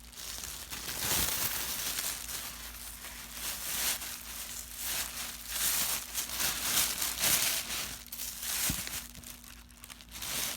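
Packaging crinkling and rustling in irregular bursts as an item is handled and pulled out of a bag.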